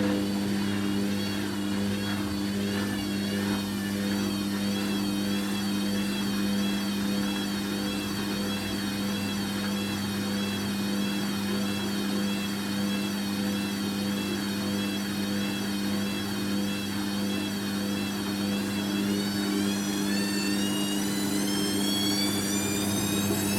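Hoover Quattro Power Jet Easylogic AE130 washing machine: a steady drain-pump hum under the drum motor's whine. The whine wavers up and down as the drum turns slowly to spread the load. About four-fifths of the way in, the whine starts to rise as the drum speeds up into the spin.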